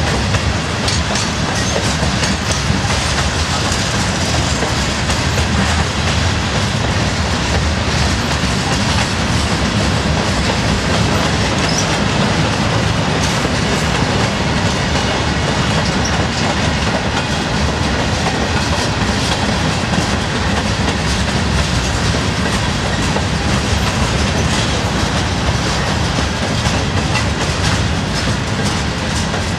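Freight train's covered hopper cars rolling steadily past close by, wheels clicking over the rail joints with a continuous rumble.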